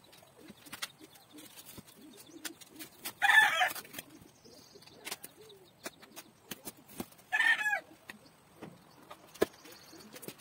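A chicken calling twice, about four seconds apart, each call loud and under a second long. Light clicks and knocks of bike parts being handled are heard between the calls.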